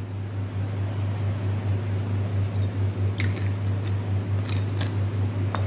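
A steady low hum, with a few light clicks and taps of a bottle and glassware being handled as dilute hydrochloric acid is added to a beaker. The sharpest click comes near the end.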